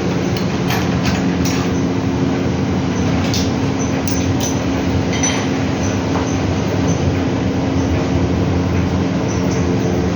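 LG washing machines running on a function test after servicing: a steady mechanical hum from motor and drum, with scattered light clicks and rattles.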